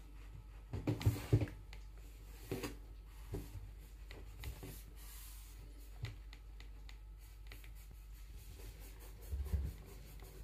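Quiet small-room tone with a steady low hum and a few soft knocks and rubs, a cluster about a second in and another near the end.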